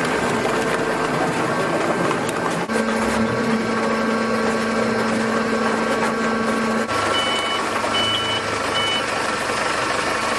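Horizontal hydraulic baler running: a steady machine noise with a hum from the hydraulic power unit. Three short, high electronic beeps sound about two-thirds of the way in.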